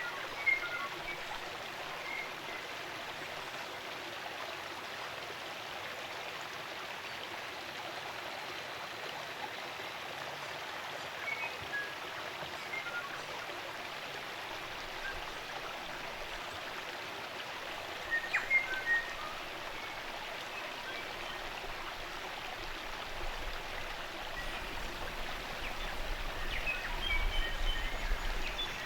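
Steady rush of a spring-fed stream's running water, with New Zealand forest birds calling in short scattered chirps now and then, a cluster of calls about two-thirds through and more near the end.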